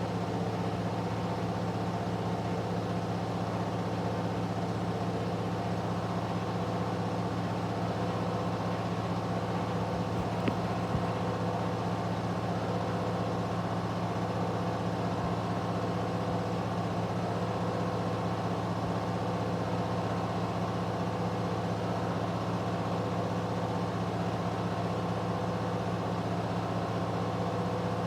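Candy washing machine drum spinning at a steady high speed in its final 1000 rpm spin: a constant motor hum and whine with no change in pitch, and one faint click about ten seconds in.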